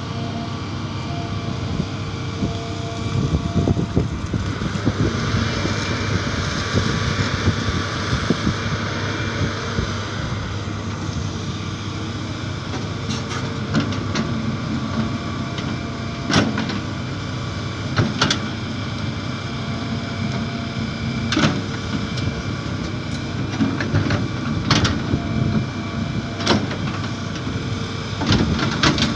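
Hitachi EX200 crawler excavator's diesel engine running steadily under digging load, with hydraulic noise as the boom and bucket work the soil. A surge of hiss rises and fades a few seconds in, and sharp knocks from the bucket striking the ground come every few seconds in the second half.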